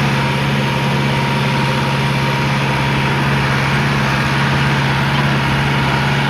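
Tractor engine running steadily at PTO speed while driving a fertilizer spreader, with a constant hum and mechanical noise.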